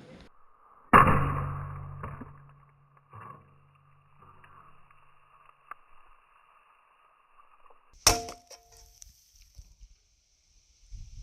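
A camcorder being smashed: a loud hard impact about a second in that rings on and fades over a few seconds, a lighter knock soon after, and a second sharp impact near the end followed by a high ringing tone.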